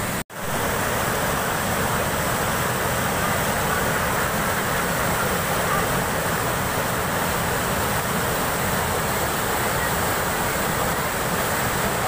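Waterfall pouring onto boulders into a pool: a steady rush of falling water, cutting out for an instant just after the start.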